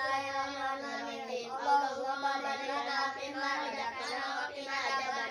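Children chanting a prayer before eating in a sing-song recitation, with long held notes.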